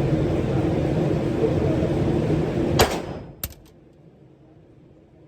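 Two 9mm Glock G19 pistol shots: a sharp shot about three seconds in and a second, smaller one about half a second later. Under them is a loud steady rumbling noise that dies away right after the first shot.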